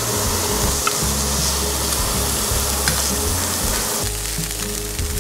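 Sliced meat sizzling on a hot charcoal barbecue grill grate: a steady frying hiss with an occasional small pop.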